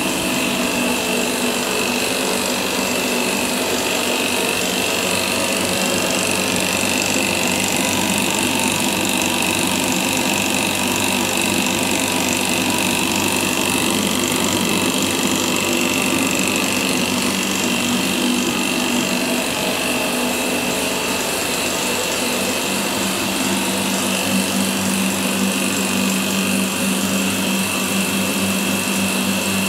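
Electric damp-proof injection pump running steadily, a constant motor hum with a high whine, as it pumps damp-proofing fluid through hoses and probes into the brickwork.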